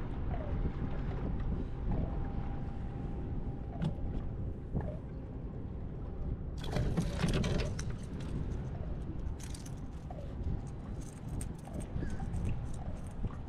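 Wind buffeting the microphone on a small boat, a steady low rumble, with a cluster of sharp clicks and rattles about six to eight seconds in and more scattered clicks near the end.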